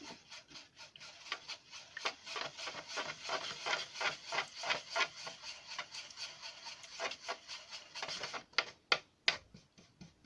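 Paintbrush scrubbing ink wash onto a paper model in quick repeated strokes, about three a second, with a few sharper strokes near the end.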